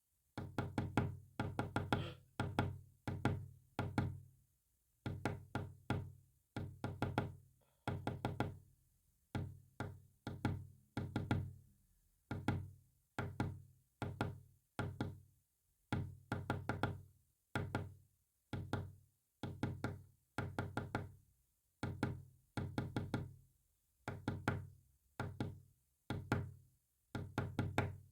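Knocks tapped out in quick clusters of two to six, with short pauses between the clusters, in the pattern of a Morse code message. Each knock is sharp, with a brief low ring.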